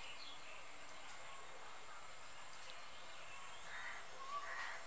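Faint background of birds chirping over a steady high hiss, with crows cawing near the end.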